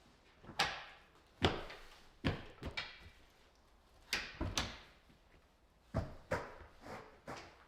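A series of about ten irregular knocks and thuds, some in quick pairs, each with a brief ringing tail in a small, reverberant room.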